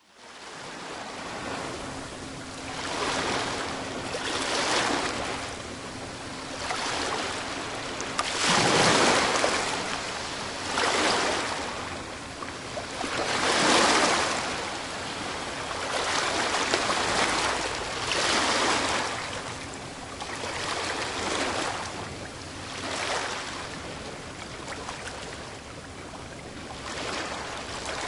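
Ocean waves breaking on a beach: a continuous hiss of surf that swells and falls back every few seconds, with two bigger breakers about nine and fourteen seconds in.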